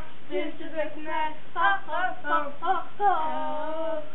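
A young girl singing unaccompanied in a high voice, quick short syllables, then a long held note that slides down in pitch near the end.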